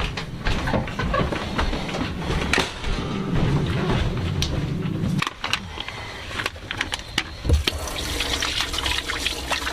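Water running from a tap and splashing, as in hand washing, with scattered knocks and clicks. A low rushing stops about five seconds in, and a brighter hiss of running water starts near the end.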